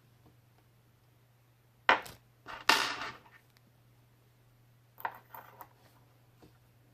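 Parts of a paintball marker being handled during reassembly: a sharp knock about two seconds in and a short clatter right after, then a few light clicks about five seconds in.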